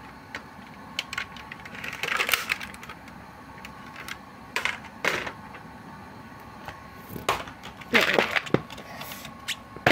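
Hard plastic container being handled and opened: scattered clicks and knocks, with a few short scraping rattles about two seconds in, around five seconds and about eight seconds in.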